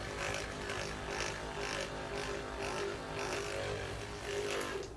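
Electric vibratory percussor (percussion massager) running against the muscles: a steady motor hum with a higher buzz that pulses regularly, cutting off at the very end.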